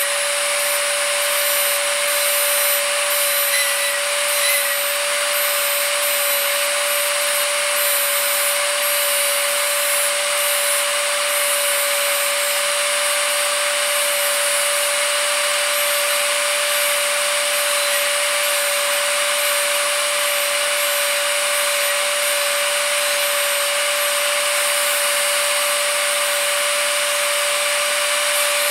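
Dremel rotary tool running at a steady speed, its small grinding wheel grinding the profile into a steel scratch-stock cutter blade: a constant motor whine over the hiss of grinding.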